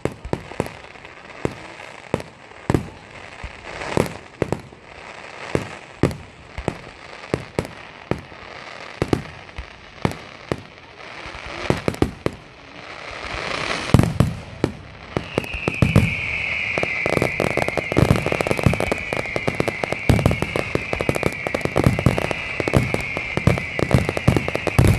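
Fireworks display: sharp bangs of shells bursting, about one or two a second. About halfway through it thickens into a louder, rapid crackle of many reports with a high wavering whistle over it.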